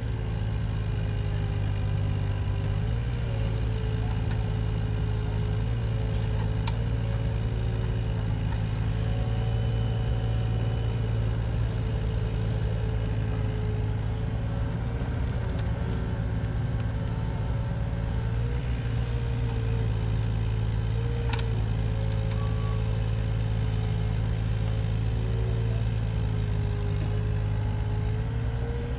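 Diesel engine of a compact loader running at a steady speed, with brief small rises in speed every few seconds.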